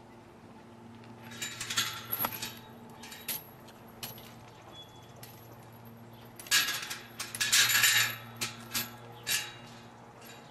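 Metallic jangling and clinking in two bursts, one about a second and a half in and a longer one from about six and a half to nine and a half seconds in.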